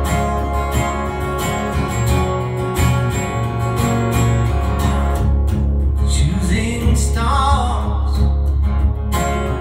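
Acoustic guitar strummed in a steady rhythm, with a wordless vocal line rising and falling briefly past the middle.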